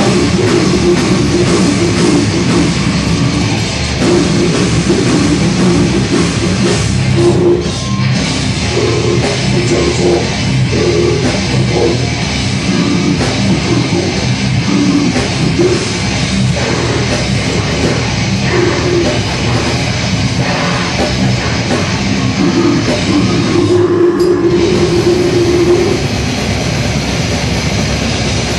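Death metal band playing live: heavily distorted electric guitars, bass and drum kit, loud and dense with no breaks.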